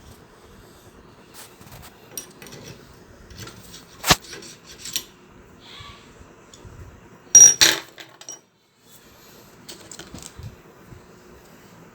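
Metal tools and parts clinking against a sewing machine as a rod is refitted and tightened: small handling taps, a sharp click about four seconds in, and a louder metallic clatter with a brief ring a few seconds later.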